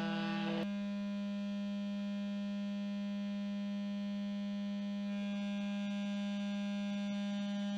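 Loudspeaker playing a steady low test tone of 252 Hz, a constant hum with a buzzy edge of overtones, used to set a plate of water vibrating. A faint hiss comes in about five seconds in.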